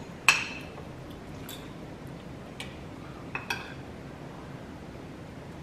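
Spoons and forks clinking against plates as two people eat: one sharp clink just after the start, then four lighter ones spread over the next few seconds.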